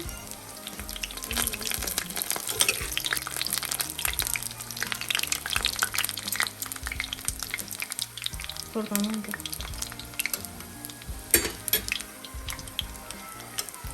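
Batuk, fritters of ground chana dal, frying in shallow oil in a pan: a steady crackling sizzle, with a few sharper clicks of a utensil. The oil is shallow, which the cook thinks is not quite enough.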